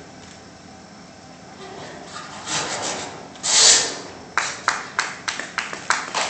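A brief loud rush of noise a little past the middle, then audience clapping in a quick steady rhythm, about four to five claps a second, for the last two seconds.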